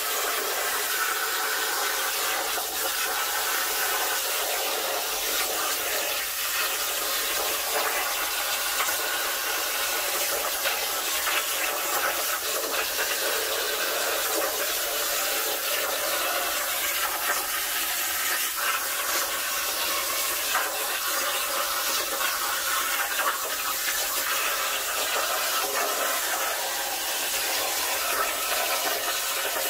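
Jasic Cut 45 air plasma cutter on a CNC plasma table cutting sheet metal over a water table: a steady, harsh hiss from the plasma arc and its air jet, unbroken while the torch traces the design.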